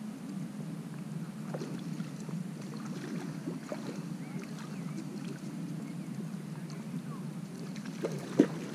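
Steady low rumble of wind on the microphone, with faint scattered ticks and one sharp click near the end.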